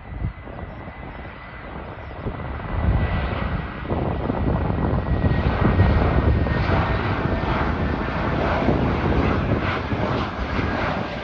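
Airbus A321neo jet airliner with Pratt & Whitney geared turbofan engines flying low past on final approach at landing power. Its engine noise swells from a few seconds in and stays loudest through the second half, with a thin steady high whine over a deep rumble.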